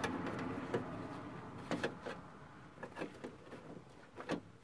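A handbrake boot and its escutcheon plate being handled and pushed into place against a metal panel: soft rustling at first, then a few light, separate clicks and knocks.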